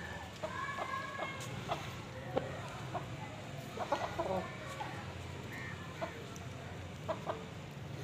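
Aseel chickens, a rooster and a hen, clucking in short scattered calls over a steady low hum.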